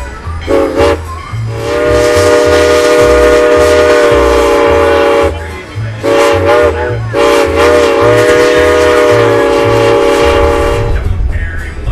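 Steam locomotive's chime whistle, several notes sounding together: two brief toots, then a long blast, a short one and a second long blast. Country music plays faintly underneath.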